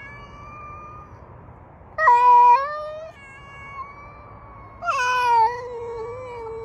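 Domestic cat giving two long, drawn-out meows, about two and five seconds in, with a fainter held cry between them.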